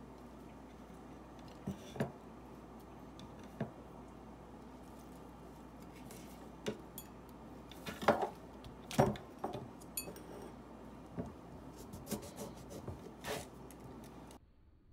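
Kitchen utensils clinking and knocking on dishes during food preparation: scattered light knocks, the loudest about eight and nine seconds in, over a steady low hum that cuts off suddenly near the end.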